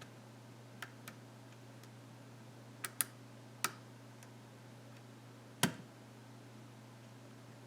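Scattered sharp metallic clicks from a pin-tumbler challenge lock being single-pin picked: the pick working the pins under tension. There are about six irregular clicks, the loudest near the end, over a faint steady hum.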